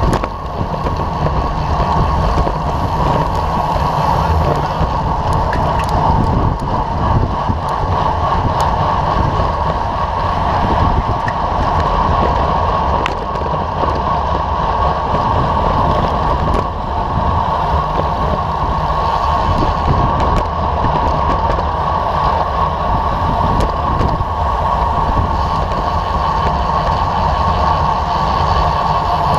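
Steady wind rush on a bicycle-mounted camera's microphone, with road rumble from racing bike tyres rolling fast on asphalt. A few faint ticks sound here and there.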